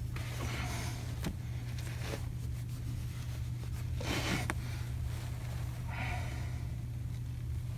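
A person breathing heavily through the nose and mouth, a breath about every two seconds, over a steady low hum, with a couple of faint clicks.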